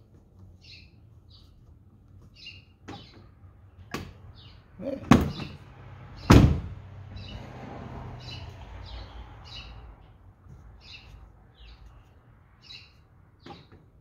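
Ford F-150 Raptor driver's door lock and latch clicking: a few light clicks, then two loud clunks about a second apart near the middle, followed by a few seconds of soft rustling. This is the door unlocking from a code entered on the new keypad. Birds chirp repeatedly in the background.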